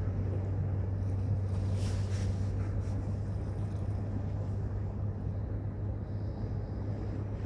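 Calm sea water lapping and washing against shoreline boulders, with a brief brighter splash about two seconds in, over a steady low rumble.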